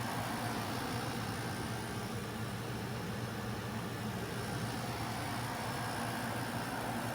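Black+Decker BPACT10WT 10,000 BTU portable air conditioner running and cooling at its lowest temperature setting: a steady low hum under an even rush of air.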